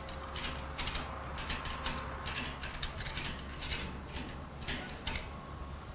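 Sharp metallic clicks, a few a second at an uneven pace, from a hand-worked ratchet winch or lever hoist on the chain used to turn a steel boat hull; they stop about a second before the end.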